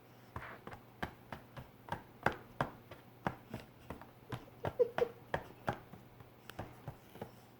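A quick, irregular run of sharp knocks and taps, about three a second: hard household objects used as puppets striking each other or a tabletop in a fight.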